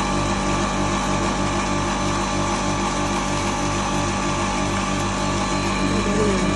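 Double-chamber maize grinding machine running steadily while grinding dried corn kernels from its hopper: a constant motor hum with a low throb repeating several times a second.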